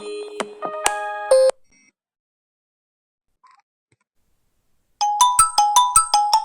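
Phone ringtones on a Xiaomi phone: an electronic melody stops about a second and a half in. After a few seconds of near silence, a different ringtone starts, a fast run of short notes at about six a second.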